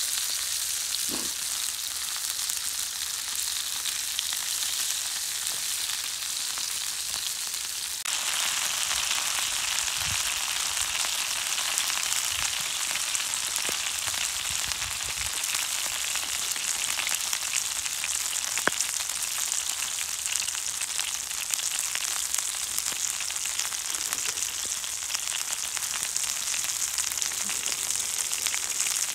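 Food frying over a fire, a steady sizzle that gets louder and brighter about eight seconds in, with an occasional pop.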